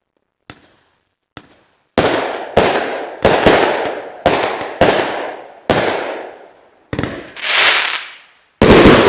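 Consumer fireworks cake firing its last shots: two small pops, then a rapid run of sharp bangs, each with a short fading tail. Near the end a hissing swell rises and falls, followed by the loudest bang of all.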